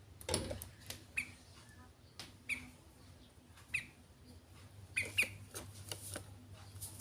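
Sooty-headed bulbul (kutilang) giving short, sharp chirps every second or so, a quick pair just after five seconds, with scattered light clicks between them.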